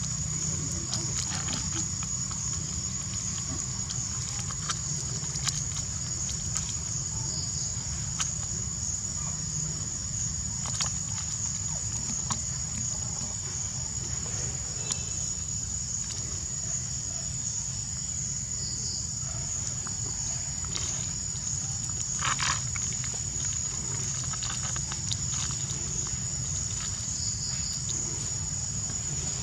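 Steady high-pitched insect drone, with a low rumble beneath it and scattered small clicks and taps; a louder short sound comes about two-thirds of the way in.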